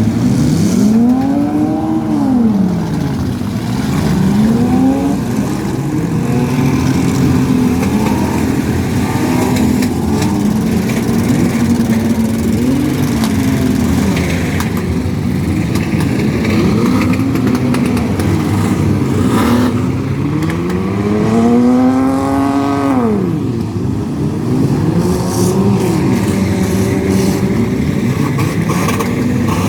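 Engines of several demolition derby cars revving up and down over one another, with a few sharp bangs of impacts. About two-thirds of the way through, one engine revs hard and high, then drops.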